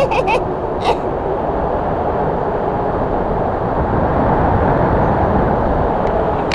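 Wind rushing over the microphone of a camera mounted on a hang glider in flight: a steady, loud, even rush of airflow noise.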